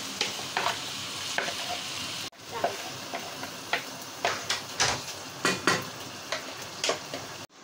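Soaked basmati rice going into a hot pot of frying chicken and onions, sizzling steadily, with repeated short scrapes and taps of a wooden spatula against the plastic bowl and pot rim. The sound breaks off for an instant twice.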